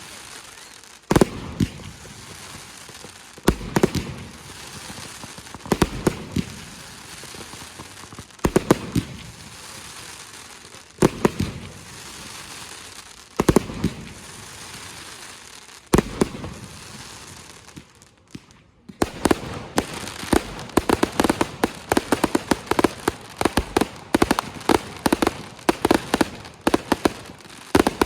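Consumer fireworks going off: single loud bangs about every two and a half seconds, each trailed by crackling. After a short lull, a dense rapid run of crackling pops starts.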